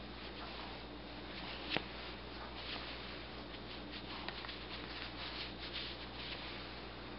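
Soft, scattered rustling and scratching of a tabby cat shifting its head against the blanket right at the microphone, with one sharp click about two seconds in, over a steady low hum.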